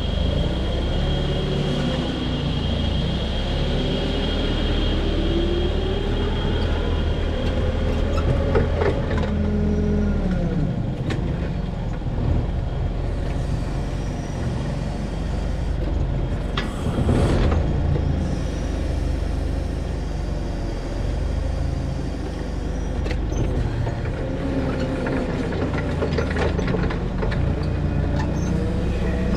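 Engine of a large machine running under changing load, its speed rising and falling again and again, with a short burst of hiss about seventeen seconds in.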